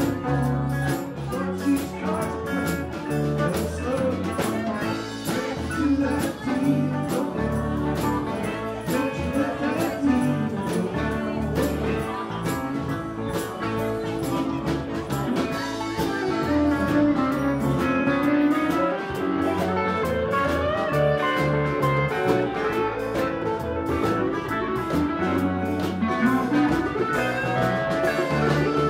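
Live band playing music with a steady beat.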